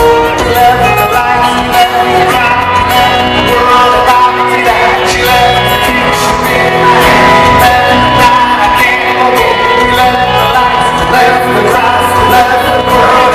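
Live country-pop band playing, with a male lead singer on microphone over electric guitars and drums, heard from the audience in a large arena.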